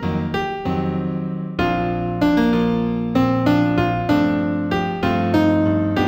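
Slow New Age keyboard music in B minor: a melody of struck notes that ring and fade over sustained low chords, with a new chord entering about a second and a half in.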